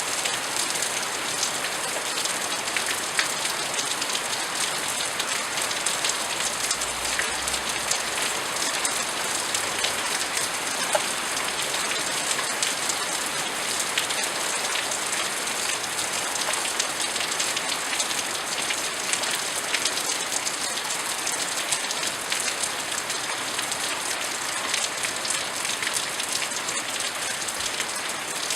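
Steady rain falling, with many individual drops ticking sharply on a surface.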